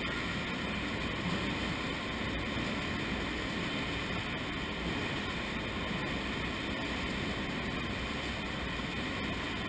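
Sludge-removal machinery running steadily, a continuous even mechanical noise with a low rumble and no distinct beats or tones.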